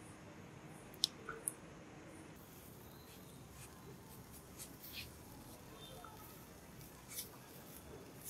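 Hot charcoal crackling under chicken kebab skewers: a few sharp pops about a second in, then scattered single snaps over a faint steady hiss.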